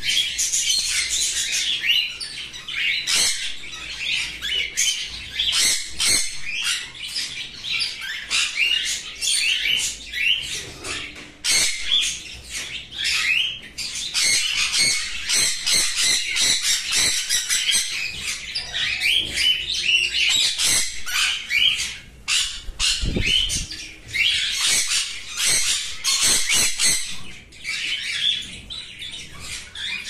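Cockatiels calling non-stop, a dense stream of shrill chirps and squawks. A brief low thump comes about two-thirds of the way through.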